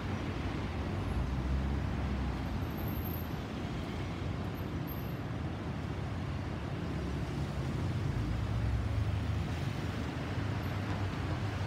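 Distant jet engine rumble from a receding Boeing 737-800 with CFM56-7B engines: a low, steady rumble that swells slightly twice.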